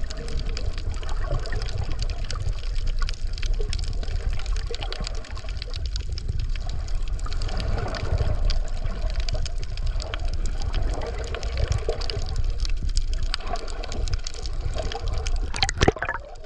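Water noise heard through an underwater camera: a steady low rumble of moving water with scattered faint clicks. Near the end comes a brief louder splash as the camera comes up to the surface.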